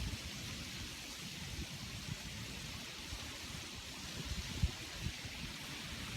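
Steady outdoor hiss with irregular low rumbling underneath.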